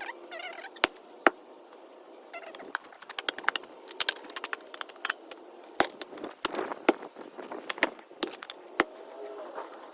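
Irregular sharp cracks and snaps of branches and twigs being broken and handled, thickest between about four and seven seconds in.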